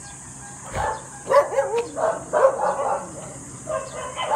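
A dog barking, a run of short barks with gaps between them.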